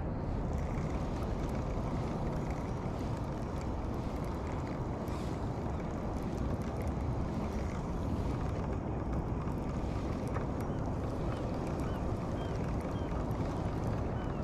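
Steady low rumble of wind blowing across the microphone.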